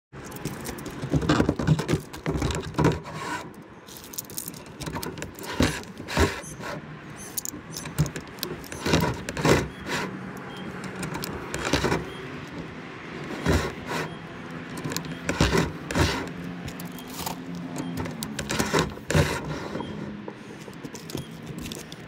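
Irregular clattering knocks and scraping of a fiberglass inspection camera rod being handled and pushed through a plastic dryer vent hood, played at double speed, with a faint steady low hum underneath in the second half.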